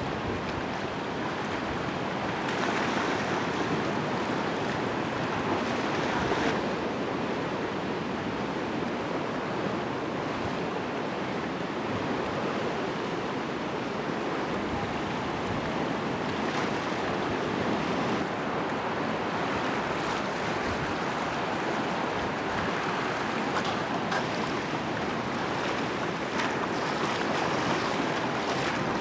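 Sea surf rushing and breaking against a rocky shore, a continuous wash that swells a little now and then.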